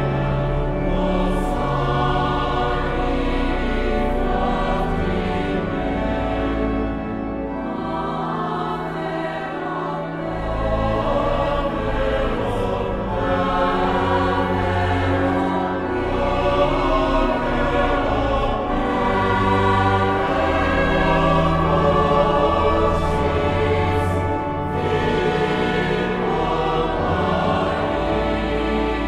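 Background music: a choir singing slow, long-held notes over a low bass.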